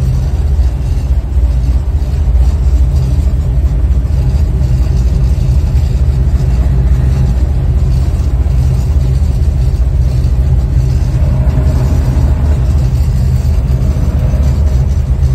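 Dodge Coronet's 440 V8 idling with a loud, steady low rumble, heard from inside the cabin. Car wash spray and brushes hiss against the body and glass.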